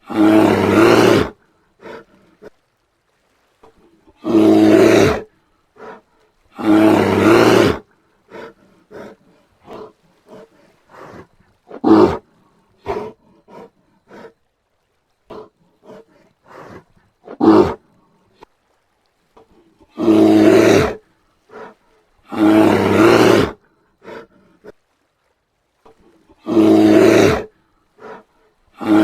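Brown bear roaring: six long, loud roars of about a second each, three in the first eight seconds and three in the last ten, with two shorter, sharper calls around twelve and seventeen seconds in and quiet grunts between.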